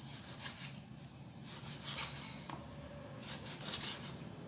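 Kitchen knife cutting through raw pork belly on a plastic cutting board: a series of short, crisp slicing and scraping strokes in uneven clusters, with the blade meeting the board.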